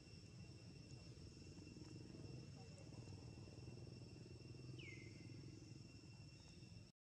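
Faint, steady high-pitched drone of insects, over a low rumble of background noise. About five seconds in comes one short falling chirp, and near the end the sound cuts out briefly.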